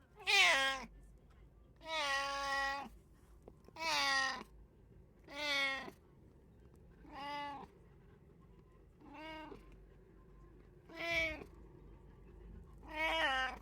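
Domestic cat meowing repeatedly, about eight meows roughly two seconds apart, the first the loudest.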